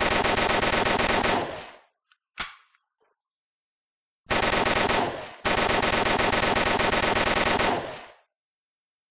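MAT-49 submachine gun firing full-auto. A burst runs on and dies away about a second and a half in, a single short click follows, then after a pause come two more bursts with a brief break between them, the last ending about eight seconds in.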